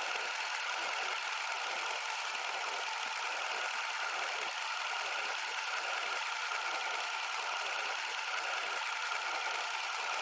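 Film projector sound effect: a steady mechanical whir and rattle with hiss, even in level throughout.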